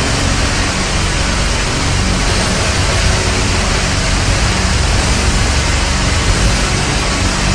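Loud, dense background music with a heavy, noisy, distorted texture that runs on without a break.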